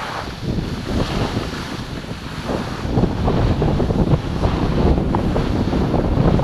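Wind buffeting the microphone of a camera worn by a skier going downhill, with the skis scraping over packed snow. It grows louder about three seconds in.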